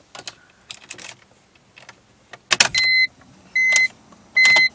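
A few light clicks and rattles, a louder clatter, then three short electronic beeps at one steady pitch, each about a third of a second long and spaced just under a second apart.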